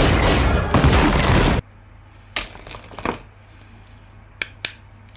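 A loud, dense crashing sound cuts off abruptly about one and a half seconds in. What follows is a quiet room with a handful of sharp, brief clicks and taps, like plastic toy parts being handled.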